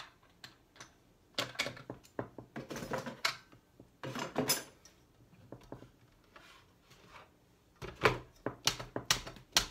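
Metal hand-crank pasta machine being handled: scattered knocks, clicks and metal rattles in several short clusters, the busiest near the end.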